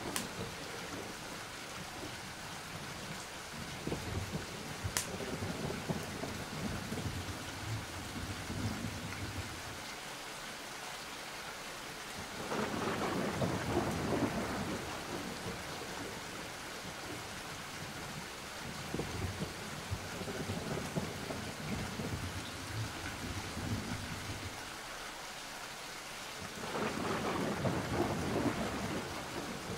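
Thunderstorm ambience: steady rain with rolling thunder rumbling underneath, swelling louder about halfway through and again near the end. A single sharp click a few seconds in.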